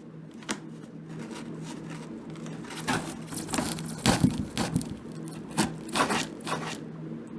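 Cardboard shipping box being opened by hand: cardboard and packing material scraping, rustling and tearing, growing busier about three seconds in, over a steady low hum.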